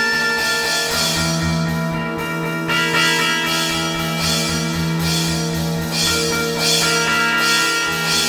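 Noise-metal from a trio playing 12-string guitars: a held, droning guitar chord over a pulsing low beat. A cymbal-like hiss swells about once a second.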